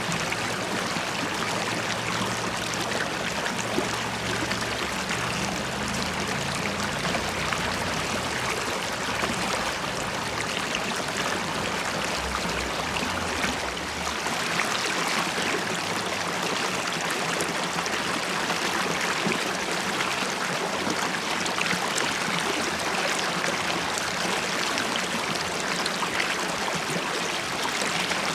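River water running and bubbling over stones, a steady rushing with a low rumble underneath that fades about halfway through.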